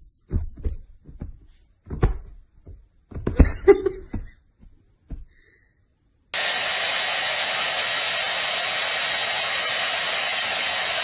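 A few short thumps and scuffles over the first five seconds. About six seconds in, a hair dryer switches on and blows steadily, a rushing noise with a faint high whine.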